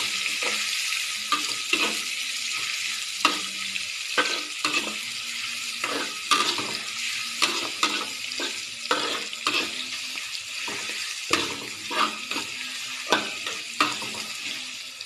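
Chopped chillies, onions and other aromatics sizzling in hot oil in a steel wok, with a steady hiss. A utensil scrapes and knocks against the wok irregularly, about once a second, as they are stir-fried.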